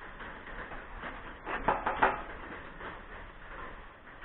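A quick cluster of light clattering knocks about a second and a half in, over a faint steady background.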